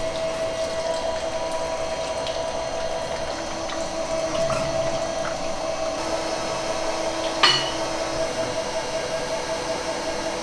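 Motor-driven tofu-making machinery running steadily: a constant electric hum over the sound of liquid being pumped or poured, with one sharp click about seven and a half seconds in.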